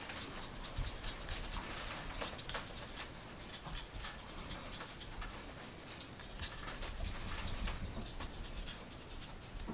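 Stiff-bristled paintbrush scrubbing and blending oil paint over a plastic model fuel tank: soft, irregular scratching strokes.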